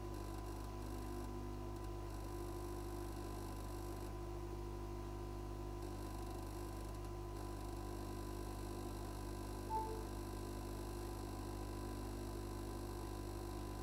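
Steady hum of a hot air rework station running at the bench, with one short high beep about ten seconds in.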